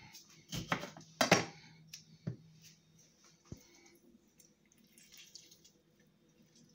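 Half a lemon being squeezed by hand over a blender jug of cut fruit, its juice dripping in. A few sharp knocks of handling come in the first couple of seconds, the loudest about a second in.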